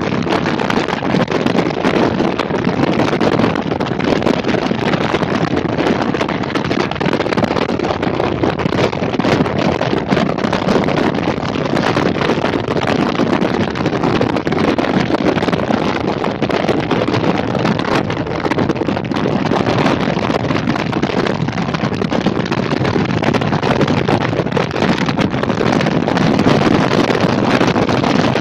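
Steady wind rush buffeting the microphone of a camera on a motorcycle moving at highway speed, a loud, even roar with no breaks.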